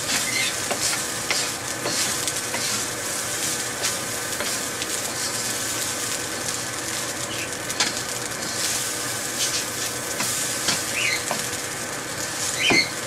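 Rice frying in oil in a hot pan, sizzling steadily, with a spatula scraping and tapping as the lumps are mashed out and the rice is turned.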